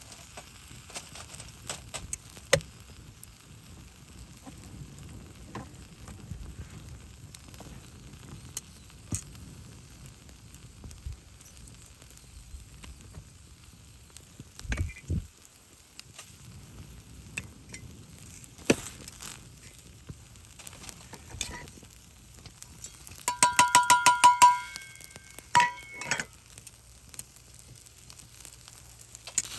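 Fire crackling and sizzling, with scattered sharp pops. About three-quarters of the way through, a brief run of rapid clicks with a ringing tone stands out.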